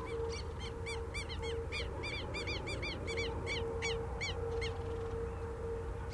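Buff-necked ibis (curicaca) calling: a rapid series of about twenty loud, arched notes, about four a second, that stops about three-quarters of the way through.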